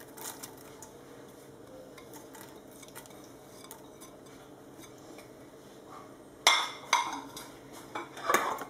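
A utensil clinking and tapping against a stainless steel pot as chopped onion is scraped in: a few faint taps at first, then several sharp, loud clinks in the last two seconds or so.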